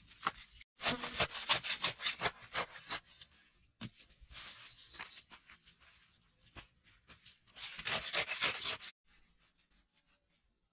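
A short-handled hand tool scraping and digging into dry, hard soil in three bursts of quick strokes.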